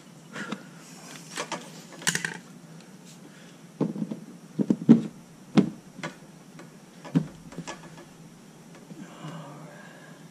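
Irregular knocks, taps and clicks of hands and a small outlet fitting handled against the plastic kayak hull as the fitting is worked into its hole, about half a dozen sharp ones with the loudest about five seconds in.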